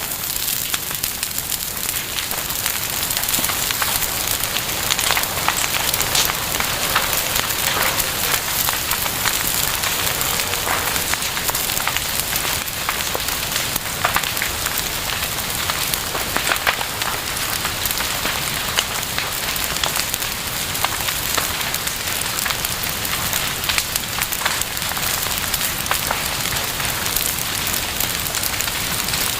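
Campfire burning, wood crackling and popping with many small sharp snaps over a steady hiss of flame.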